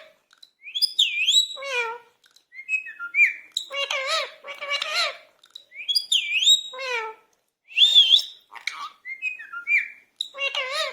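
Indian ringneck parakeet talking in its high, whistly mimic voice: short gliding phrases in a sequence that repeats about five seconds later.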